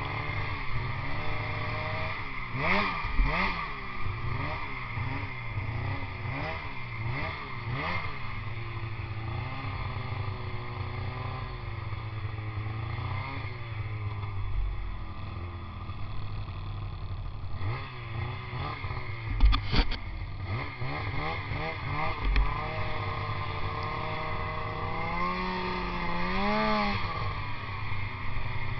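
Snowmobile engine heard on board, revving up and down again and again as the sled rides across a snowy field, with a few knocks and thumps from the ride, the loudest about two-thirds of the way through.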